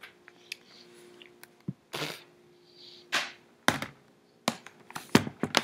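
Scattered sharp knocks and clicks and a few short rustling noises, as when things are handled near a microphone, over a faint steady hum.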